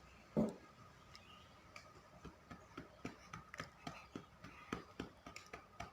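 A woman drinking water from a cup: one soft knock about half a second in, then a run of faint quick clicks, about four a second, as she swallows.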